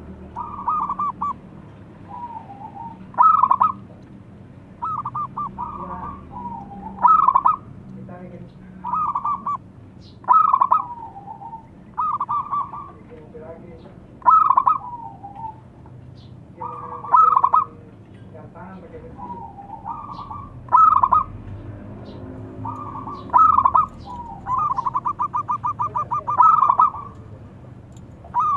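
Zebra dove cooing: short phrases of quick, rolling coos repeated every second or two, some louder and some softer, with one longer rolling run of coos near the end.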